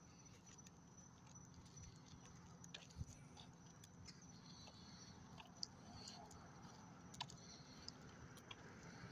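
Near silence: faint background with a few scattered sharp clicks, the clearest about three, five and a half and seven seconds in.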